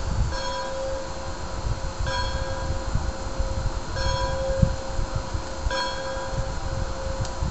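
A bell tolling slowly, struck about every two seconds with each ring held until the next, over a steady low rumble.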